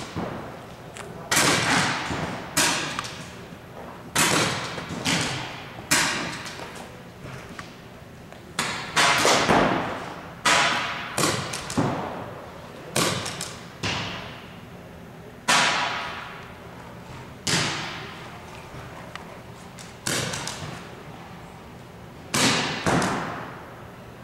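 Pump-action paintball markers firing single shots, one every second or two at an uneven pace, each shot a sharp crack that echoes through the large indoor hall.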